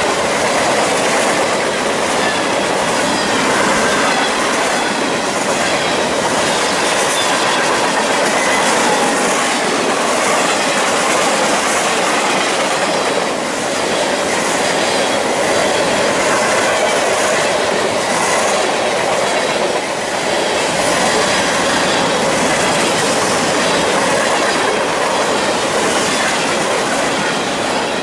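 Freight train of covered hoppers and gondolas passing close by: a steady rumble and rattle of steel wheels on rail with repeated clicking over the rail joints, dropping away at the very end as the last car clears.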